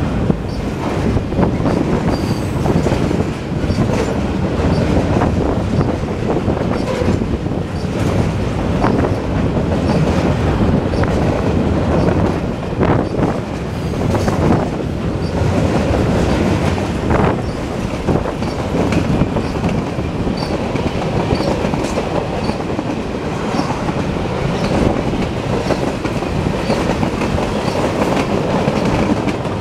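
Freight cars loaded with steel rolling past close by: a steady rumble of steel wheels on rail, with clickety-clack over the rail joints and occasional brief high wheel squeals.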